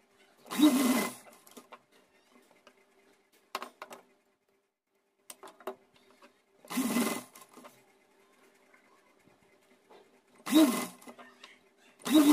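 Sewing machine stitching in four short bursts, each under a second, as it sews the drawstring casing of a tulle doll dress's waistband. A few light clicks fall between the bursts.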